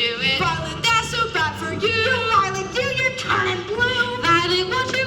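Female voice singing a musical-theatre song over musical accompaniment.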